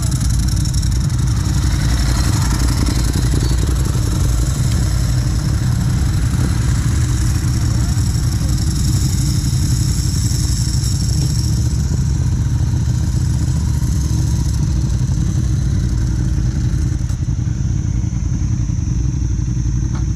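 Ducati Hypermotard's L-twin engine running steadily, heavy at the low end, with no clear rises or drops in revs.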